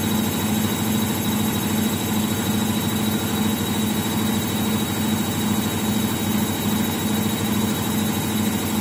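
Indesit front-loading washing machine spinning an unbalanced load: a steady motor hum with a thin high whine, and a low drone that swells and fades in a regular pulse as the off-centre drum turns.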